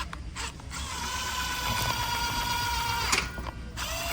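Power driver running valve-body bolts into a 6L80 transmission valve body: a steady motor whine for about two seconds that stops with a click. A second, lower-pitched run starts near the end.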